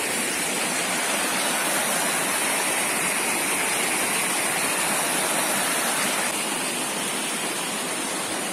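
A small waterfall and creek rushing steadily over rock slabs.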